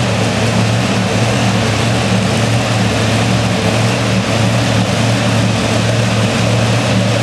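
Supercharged modified pulling tractor engine idling steadily with a deep, even hum at the starting line.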